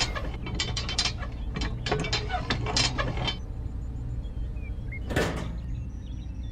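A quick run of small sharp clicks as miniature plastic toy parts (a toy jerry can and its nozzle) are handled and fitted together, then a brief whoosh about five seconds in.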